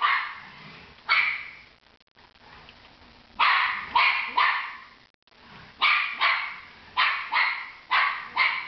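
Jack Russell terrier barking repeatedly in sharp, loud barks, in uneven bursts of one to three with a short lull about two seconds in; the dog is agitated at a remote-control car it is chasing.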